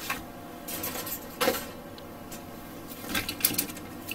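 Plastic model-kit runners (sprues) being handled and shifted on a cutting mat: a few brief rattles and clicks of hard plastic parts knocking together, about a second in, midway and again near the end.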